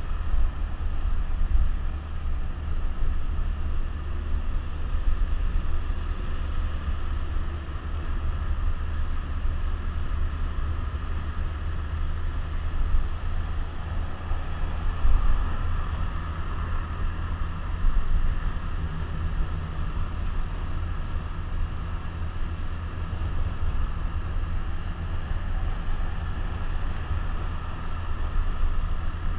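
Suzuki GZ150 motorcycle's single-cylinder four-stroke engine running at a steady cruise, heard from a helmet-mounted camera. Wind rumbles low over the microphone.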